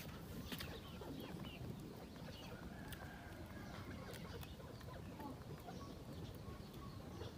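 Chickens clucking faintly.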